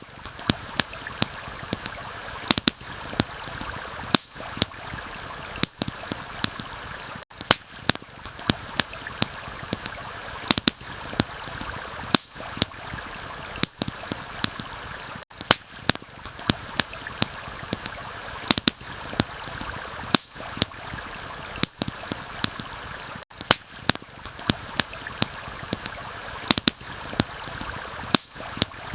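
Steady rushing of a stream, with frequent irregular sharp crackles and pops from a wood campfire over it.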